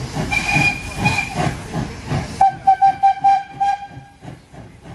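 Steam locomotive 656 working away with a rapid beat of exhaust chuffs, about four a second, with steam hissing. About two and a half seconds in, its steam whistle sounds for nearly two seconds and cuts off, after which the chuffing carries on more quietly.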